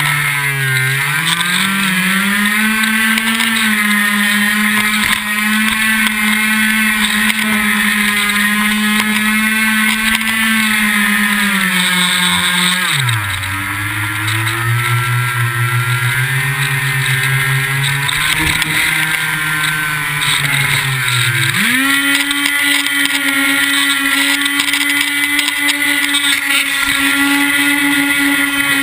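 Electric motor and propeller of a Firebird Stratos R/C plane, heard close up from a camera on the plane: a steady buzzing drone whose pitch rises about a second in, drops sharply about halfway through, and rises higher again a few seconds before the end as the throttle is changed.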